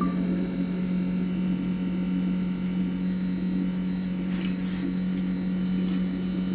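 Keurig single-serve brewer running through its brew cycle, heating and dispensing water with a steady hum.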